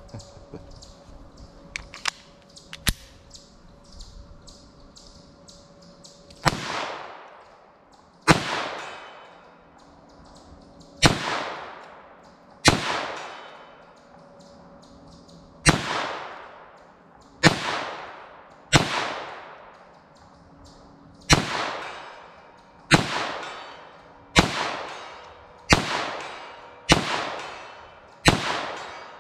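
Thirteen single shots from a .22 LR semi-automatic pistol firing Remington Golden Bullet 40-grain round-nose ammunition, each with a trailing echo. The shots start about six seconds in, one to three seconds apart, and come faster near the end. Before the first shot there are a few faint clicks of gun handling.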